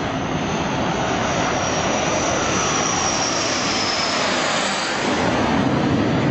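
Boeing 787's Rolls-Royce Trent 1000 jet engines on the landing rollout: a loud, steady rush of jet noise with a high whine that swells through the middle.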